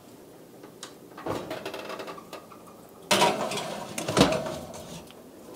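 A metal springform pan is slid into an oven and set on the metal oven rack: two stretches of scraping and rattling, the second louder and ending in a sharp clunk about four seconds in.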